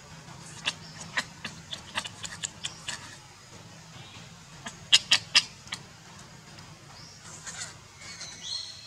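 Baby macaque crying after a bath. It gives a string of short, shrill squeaks, then three loud ones about five seconds in, and a longer, high, wavering cry near the end.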